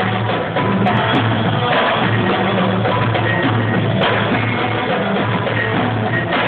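Marawis drums and gamelan playing zafin dance music.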